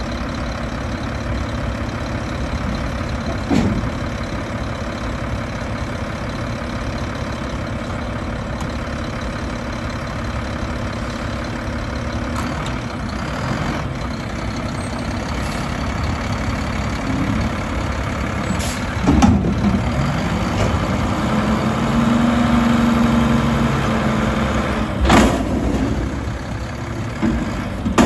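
A Mack LR front-loading garbage truck idles steadily, then its engine speeds up into a steady higher note as the hydraulic arms lift a dumpster on the forks. There is a metal clank about two-thirds of the way through and a loud bang near the end.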